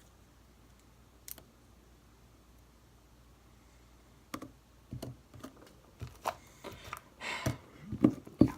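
Homemade slime with shaving cream worked in being kneaded and squished by hand, making irregular small clicks and pops. After a nearly quiet start with a single click, they begin about four seconds in and come faster and louder toward the end.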